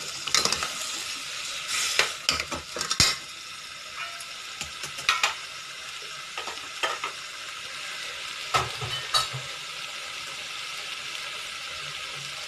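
A curry mixture of masala paste, potato, tomato and prawns sizzling steadily in oil in a metal pot, while a steel ladle stirs it, scraping and clinking against the pot in short bursts. The stirring stops about nine seconds in and the sizzle carries on alone.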